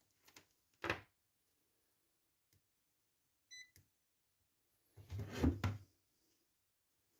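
Handling knocks and clicks from a digital multimeter being worked, with one short electronic beep from its buzzer about three and a half seconds in, then a longer, louder rubbing and knocking as it is moved.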